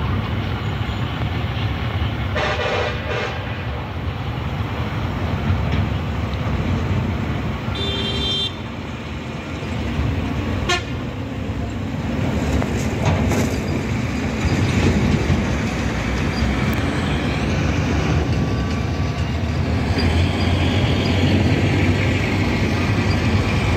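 Steady low rumble of a diesel-hauled passenger train running away down the track. Two short horn toots sound about two and a half and eight seconds in.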